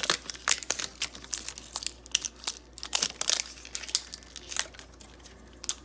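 Plastic wrapper of a LOL Surprise blind-bag ball crinkling and tearing as it is pulled off by hand, in quick irregular crackles that thin out near the end.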